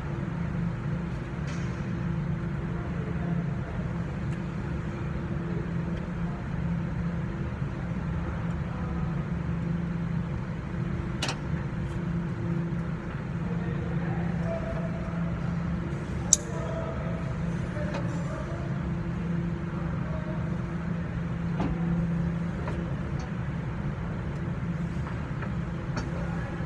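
Nissan pickup's engine idling, a constant low hum heard from beneath the truck. Two sharp clicks break through midway.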